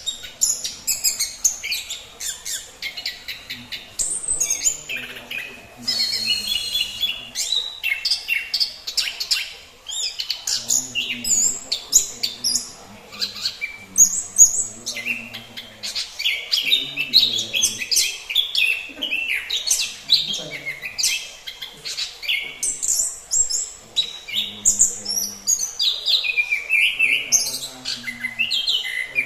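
Orange-headed thrush (anis kembang) singing a long, varied song of rapid high chirps and whistles, with hardly a pause.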